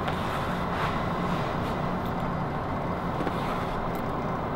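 Steady background noise like distant road traffic, with a few faint rustles as a needle and thread are drawn through the wool cloth in hand stitching.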